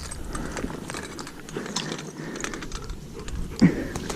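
Irregular crunching and rustling, the sound of people and a dog moving through dry field cover. A brief low voice-like sound comes near the end.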